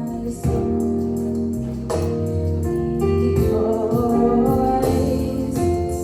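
Church choir singing a slow gospel praise song over a band with bass and guitar.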